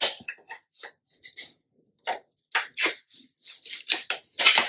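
Light, irregular knocks and clicks of bamboo furniture rails being handled and set against each other, mixed with short rustles of paper, the loudest rustle near the end.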